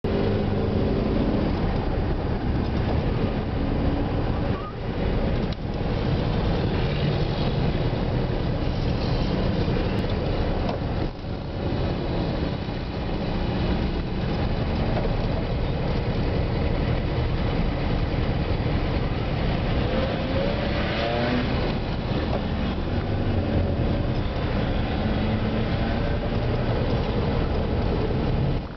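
Car engine running and road noise heard inside the car's cabin as it creeps through slow traffic, with a short rising engine note about twenty seconds in.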